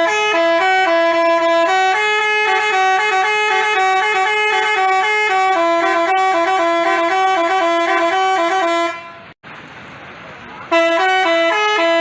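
Basuri telolet musical bus horn playing a tune of stepped, held notes. It breaks off for under two seconds about nine seconds in, then starts again.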